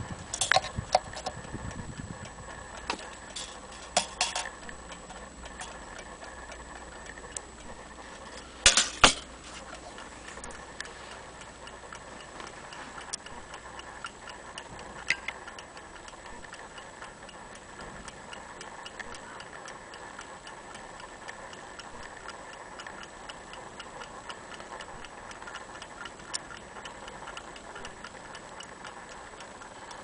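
Antique brass bird-cage clock's movement ticking steadily. A few louder knocks from handling come in the first ten seconds, the loudest a double knock about nine seconds in.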